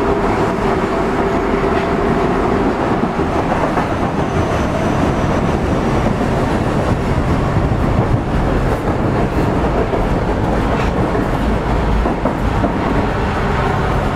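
Osaka Metro 25 series subway train running between stations, heard from inside the car: a steady rumble of wheels on rail with a few faint clicks. A steady traction-motor tone fades out over the first few seconds.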